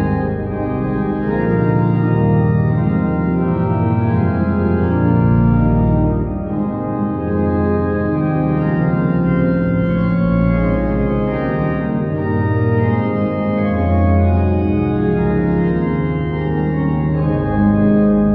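Treutmann baroque pipe organ playing sustained chords over a bass line that changes note every second or two.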